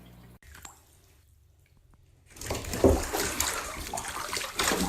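Water sloshing and splashing, starting about two seconds in and going on unevenly.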